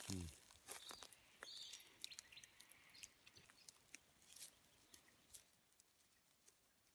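Faint, scattered small clicks and crackles from dry bush orchid stems being stripped and peeled by hand. They thin out and stop after about five seconds.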